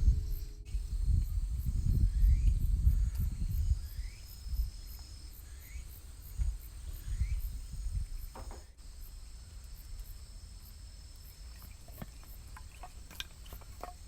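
Crickets and other insects chirping in a rapid, even, high-pitched pulse over a steady high trill, with a low rumble in the first few seconds and a few light knocks near the end.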